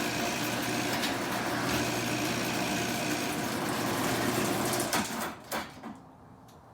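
Old garage door opener's motor running steadily as the door travels open, then cutting off about five seconds in with a few clunks as the door reaches its open limit.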